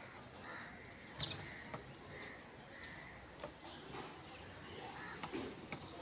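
Crows cawing now and then amid short high chirps of house sparrows, with one sharper call about a second in.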